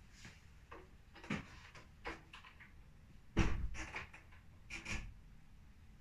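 A few dull knocks and clunks, four in all, the loudest a heavy thud about three and a half seconds in followed by a short rattle.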